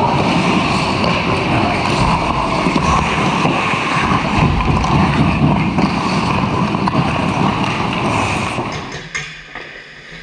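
Ice hockey play close to the net: a steady din of skates on the ice and rink noise. It drops away suddenly about nine seconds in, leaving a few sharp clicks.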